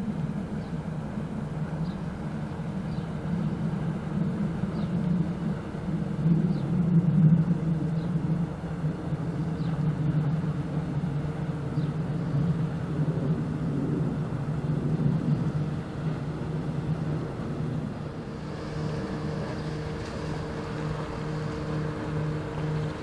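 Diesel engines of passing Rhine inland cargo vessels running with a steady low hum. About eighteen seconds in, a smaller motorboat's engine takes over with a pulsing hum.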